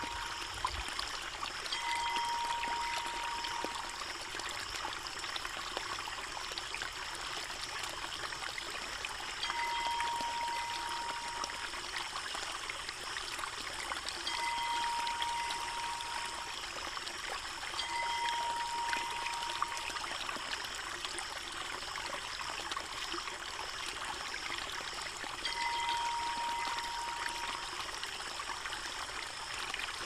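Water pouring from a bamboo spout onto stones, a steady splashing stream. Five times a steady tone sounds for about two seconds, then stops.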